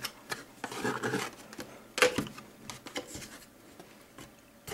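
Camcorder box and its packed contents being handled: scattered knocks, scrapes and rustles, with a sharper knock about two seconds in, then quieter for the last second.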